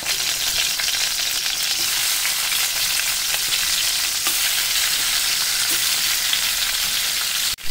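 Chicken pieces sizzling in hot oil in a kadhai as more pieces are dropped in, a steady loud frying hiss with a few faint clicks. The sound cuts out for an instant near the end.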